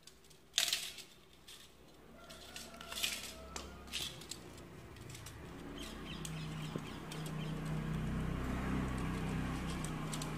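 Pliers clicking and snapping against a plastic modular wall switch: a few sharp clicks in the first four seconds, the loudest under a second in. After that a low, steady hum grows louder.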